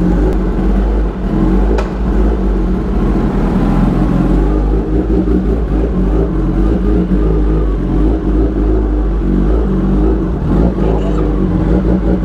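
Kawasaki Ninja ZX-10R's inline-four running steadily and loudly through a freshly fitted SC Project S1 full-system exhaust, the engine still warming up.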